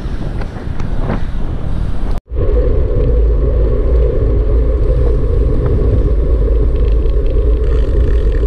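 Vehicle driving on the road: steady low rumble of engine, road and wind noise. It breaks off for an instant about two seconds in and comes back louder and steadier.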